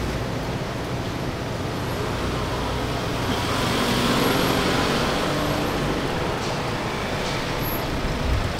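A passenger van driving slowly past, engine and tyre noise swelling about halfway through and fading again.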